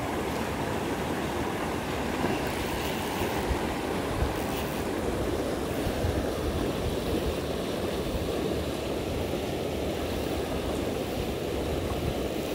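Water rushing from an outlet into a river: a steady rushing noise with a low rumble.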